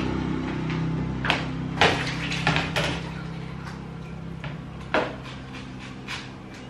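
Sharp irregular knocks of a kitchen knife and a plastic chopping board on a worktop as the board is set down and a red onion is cut, a cluster in the first few seconds and a single louder knock near the five-second mark, then lighter taps. A low steady hum underneath fades out in the first half.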